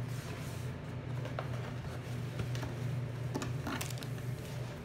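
Sheet of shiny metallic plastic film being handled, giving a few short crinkles and crackles, most of them about three and a half seconds in. A steady low hum runs underneath.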